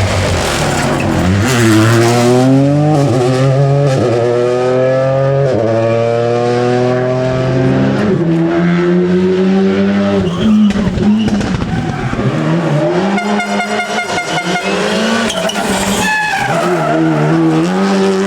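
Rally car engine accelerating hard through several upshifts, the revs climbing and dropping back at each gear change, then rising and falling with lifts and braking. About two-thirds of the way through comes a short rapid run of sharp pops.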